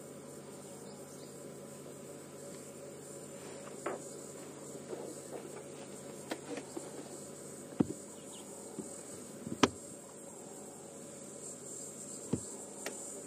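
Steady high-pitched chirring of insects in the bush, with several sharp cracks scattered through it, the loudest about two-thirds of the way through.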